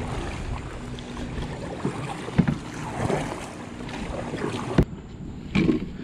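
Kayak paddle strokes splashing in the water, with some wind on the microphone. About five seconds in there is a sharp click, followed by a few knocks.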